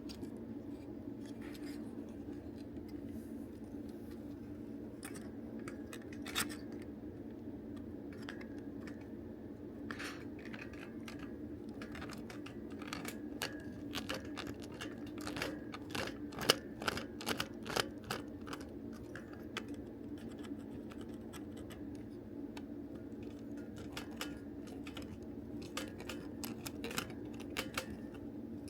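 Irregular small clicks, taps and scrapes of plastic toy-belt parts and tools being handled during disassembly, busiest in the middle, over a steady low hum.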